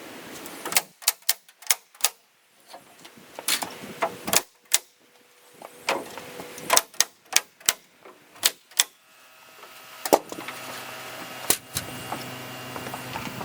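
Nails being driven into wood framing: about fifteen sharp, irregular strikes, some in quick pairs. About ten seconds in, a steady machine hum starts under the last strikes.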